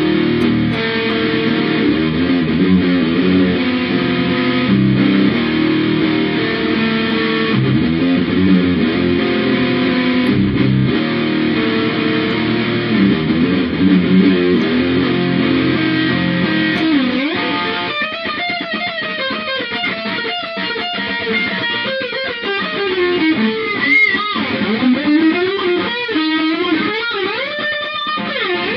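Electric guitar music: layered, sustained chords, then about 17 seconds in a lead line with wide sliding, bending notes takes over.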